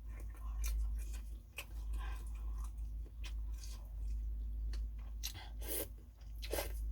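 A person chewing and eating a bowl of pho close to the microphone, with short, irregular mouth sounds. A steady low hum runs underneath.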